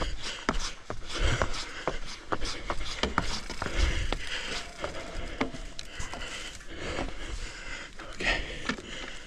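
Footsteps and a pushed mountain bike on wooden trail planks: irregular knocks, clicks and scrapes with low thumps.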